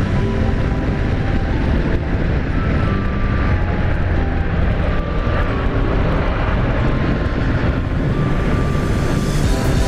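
Riding noise from a motorbike on the move: wind rushing over the microphone with the engine running underneath, its pitch shifting now and then.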